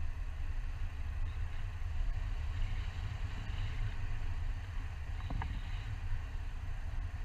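Wind buffeting the microphone of a pole-mounted camera during a tandem paraglider flight: a steady, heavy low rumble with a rushing hiss above it.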